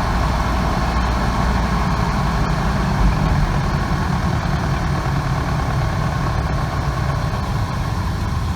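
1998 Ford 5.4-litre two-valve V8 running steadily, with the noise that was traced to a cracked exhaust manifold between cylinders 6 and 7.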